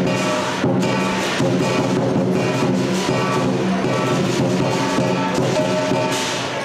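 Chinese lion dance music: drum, cymbals and gong played together, with repeated sharp crashes over a ringing tone.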